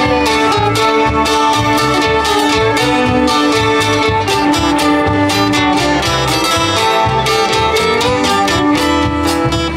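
Live acoustic string band playing an instrumental passage with no vocals. Fiddle plays over plucked cuatro and mandolin, with bass guitar pulsing underneath, in a country/bluegrass style.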